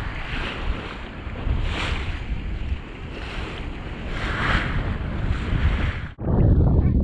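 Sea water rushing and splashing along the hull of a moving fishing boat, with heavy wind buffeting the microphone and a low rumble underneath. The sound breaks off abruptly about six seconds in and comes back as a louder low rush.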